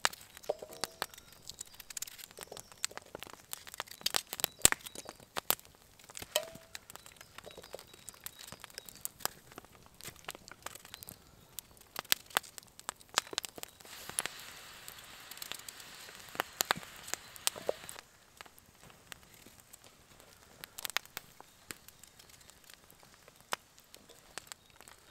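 Knife cutting through potato and celeriac held in the hand, pieces dropping into a frying pan, over the irregular snaps and clicks of a log fire crackling. A soft hiss rises for a few seconds past the middle.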